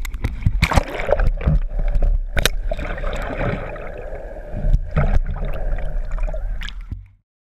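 Water gurgling and sloshing around a camera held underwater, with scattered sharp knocks and splashes; the sound cuts off suddenly near the end.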